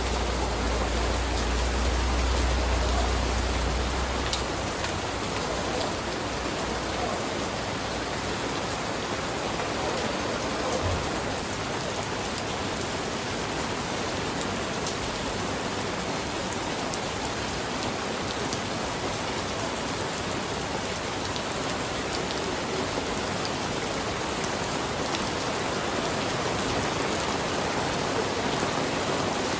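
Steady rain falling and pattering on surfaces, with scattered drop ticks. A low rumble sits under it for the first few seconds and then fades out.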